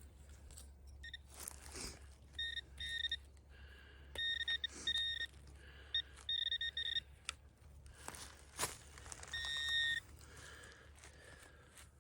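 Metal detector sounding repeated high, steady-pitched beeps in short bursts as the coil passes over buried metal, with a few sharp scrapes or knocks in between.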